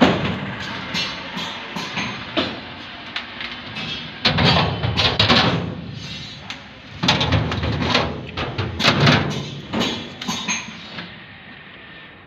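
Music with percussion, with sharp knocks scattered through it and two louder passages in the middle.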